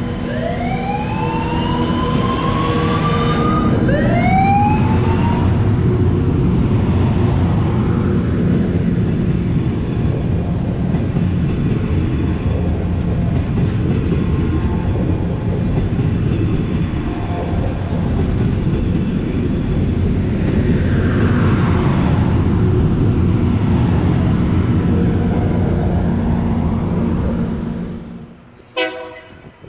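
ARTC Loram rail grinder train passing close by: its diesel engines running and its wheels rumbling on the rails, loud and steady. Two rising whines sound in the first few seconds, and near the end the noise falls away, followed by a brief sharp knock.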